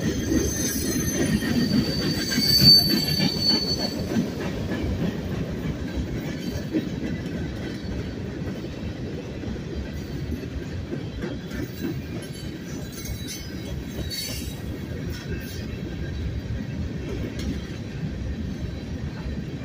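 Freight cars of a passing manifest train rolling by with a steady rumble of wheels on rail. High-pitched wheel squeal rises over it in the first few seconds, loudest about three seconds in, and comes back briefly about two-thirds of the way through.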